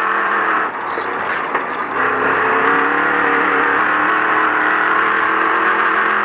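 Ford Ranger desert race truck's engine running hard at steady high revs, heard from inside the cab, over a dense rush of tyre and wind noise. The engine note steps up slightly about two seconds in.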